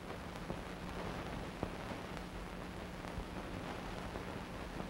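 Steady hiss with a low hum and scattered crackles and clicks, the sharpest about one and a half seconds in: the background noise of a silent archival film transfer, with no sound from the scene itself.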